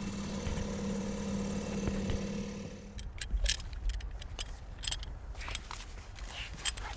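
Dinghy's small outboard motor running at a steady pitch, then cut off abruptly about three seconds in. Scattered clicks and knocks follow over a low rumble.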